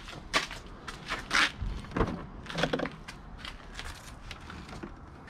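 Scattered clicks, knocks and short rustling noises of hands opening and handling the hard plastic saddlebag lids of a Honda Gold Wing, with a dull thump about two seconds in.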